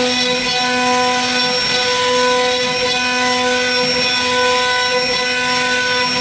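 CNC router spindle whining steadily while its small carving bit cuts into a wooden door panel, with the hiss of the cut wood underneath.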